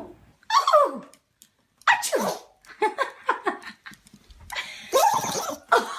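A dog sneezing again and again in short bursts, some of them sliding down in pitch like a whine, with a louder sneeze near the end.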